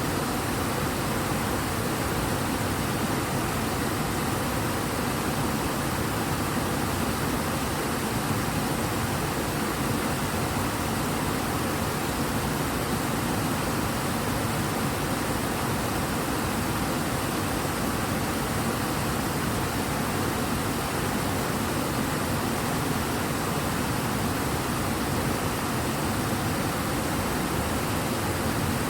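Water of the Ebro river running fast and strong, a steady, unbroken rush of flowing water.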